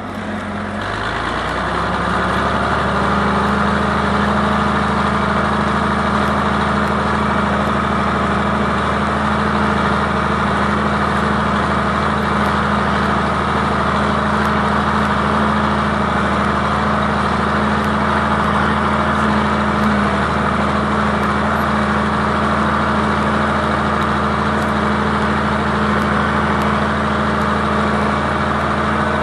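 John Deere 4020 tractor engine pulling a disc harrow through wet ground: it comes up in pitch over the first couple of seconds, then runs steadily under load.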